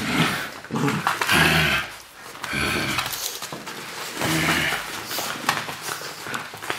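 Golden Retriever puppies play-fighting at close range: several short bursts of puppy vocal noise, with scuffling and small clicks between them.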